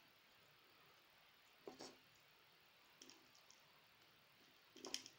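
Near silence broken by a few faint, short clicks and taps, a pair about two seconds in, a small one about three seconds in and a cluster near the end. The clicks come from pliers and a small crimp terminal being handled while crimping it onto thin 22 AWG wire.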